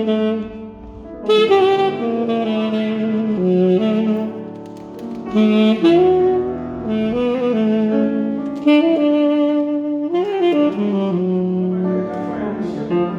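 Saxophone playing a slow, jazzy melodic line of sustained notes, some held with vibrato and some sliding, in phrases broken by short breaths.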